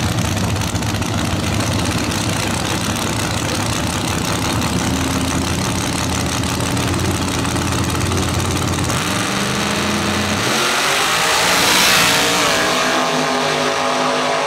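Two drag-racing pickup trucks running at the starting line, then launching at full throttle about ten seconds in. The sound is loudest just after the launch, and the engine note climbs as they pull away down the strip.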